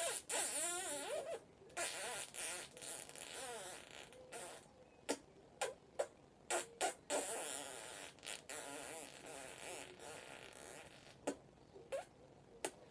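Wet kissing smacks between a woman's lips and an African grey parrot's beak, with soft wavering murmurs during the first few seconds. Sharp smacks follow, several close together around the middle, then fewer toward the end.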